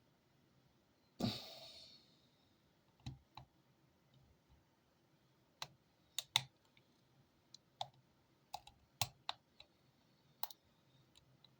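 Lock pick and tension wrench working the pins of an Abus Titalium padlock: faint, irregular small metallic clicks and ticks as the pins are pushed and set. About a second in there is one louder scraping clack that fades quickly.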